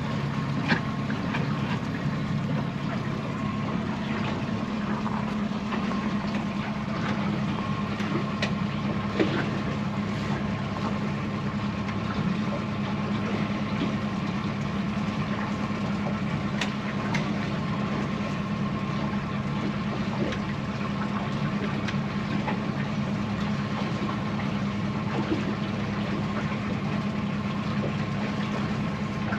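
Boat engine running steadily at low speed, an even hum with a faint steady whine over it and a few light clicks.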